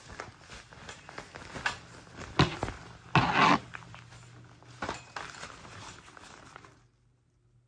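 Handling noise from a fabric photo softbox being fitted onto a light stand: scattered clicks and knocks of the stand and bracket, with a sharp knock and then a loud scraping rustle a little before halfway. The sound drops away abruptly near the end.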